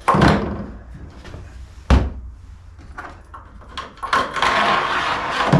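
Empty plastic diesel tank being tipped and handled on a table: knocks against the hollow tank, a sharp bump about two seconds in, then a stretch of scraping and rattling near the end as a nut on a string is worked through it.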